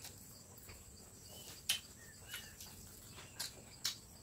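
Insects buzzing steadily at a high pitch, with a few faint bird chirps. Several sharp clicks stand out over it, the loudest about a second and a half in and two more near the end.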